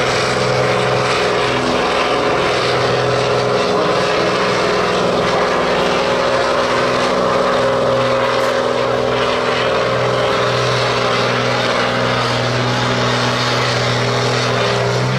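Case IH 7240 tractor's diesel engine running hard at full load as it drags a weight-transfer pulling sled, loud and steady in pitch throughout.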